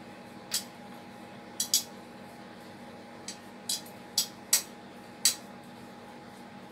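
Sharp, irregular clinks, about eight in a few seconds, as a hand wearing metal bangles and rings kneads mashed potato dough in a bowl, the jewellery knocking against the bowl and together. A faint steady hum runs underneath.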